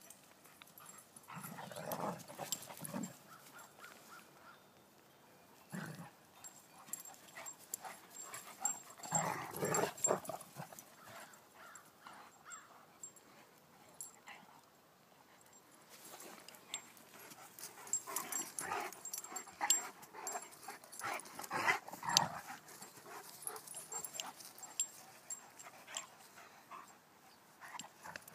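Two Irish Wolfhounds, a puppy and an adult, play-fighting, with dog vocal noises coming in irregular bursts every few seconds and quieter gaps between; the loudest bursts fall in the last third.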